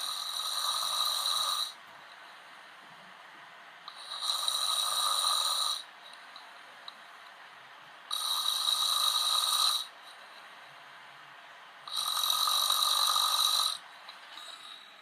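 A man snoring: four loud snores, each nearly two seconds long, coming evenly about every four seconds.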